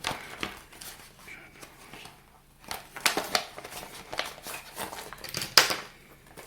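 Plastic packaging and a newly unboxed device being handled: scattered rustling and sharp clicks, the loudest a little over five seconds in.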